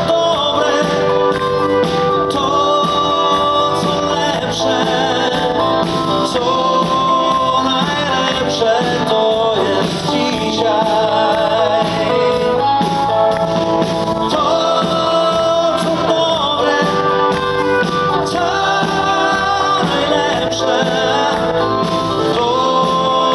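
A live band playing a pop song, with a man singing over keyboards, bass guitar and drums.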